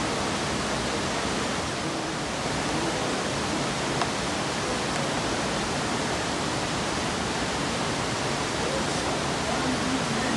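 Steady rush of running water from a waterfall, with faint voices now and then.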